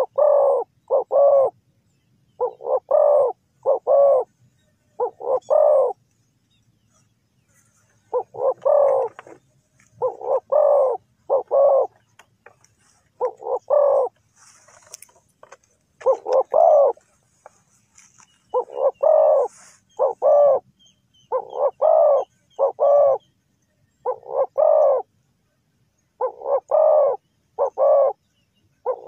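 Spotted dove cooing: short phrases of two or three low, hoarse coos, repeated every second or two with brief pauses between phrases.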